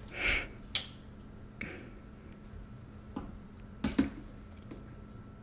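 Glitter being measured out: a short shaking rustle at the start, then a few light clicks and taps of a tablespoon against the glitter container, the two loudest close together about four seconds in.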